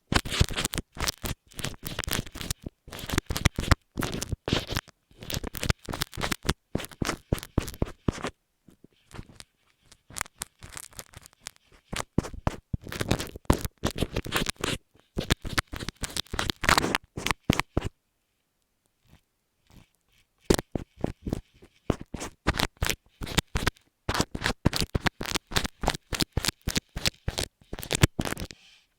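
Rapid crisp scratching and scraping strokes, rubbed directly on an earphone microphone, with a brief pause a little past the middle.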